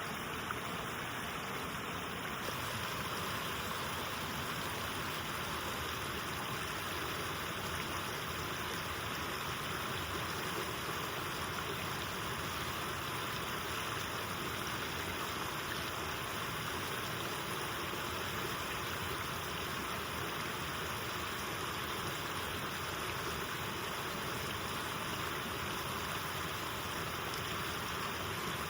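Rushing water of the Elk River, a steady, even rush that does not change.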